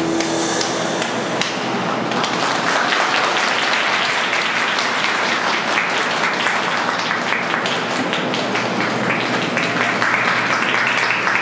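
Audience applauding, a dense patter of clapping that starts as the program music cuts off and fills out about two seconds in.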